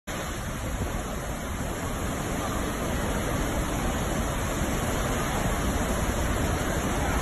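Muddy floodwater pouring over a rock ledge in a waterfall, a steady rushing of water.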